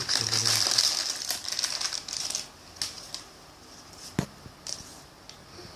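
Plastic blind-pack wrapper of a Disney Cars 3 mini racer crinkling and rustling as it is opened and handled, followed by a few light clicks of small plastic parts, the sharpest about four seconds in.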